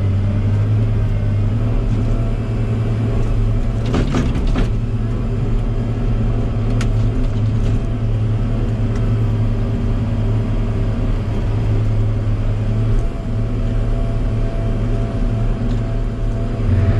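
Log loader's diesel engine running steadily with a low hum, with a brief clatter about four seconds in.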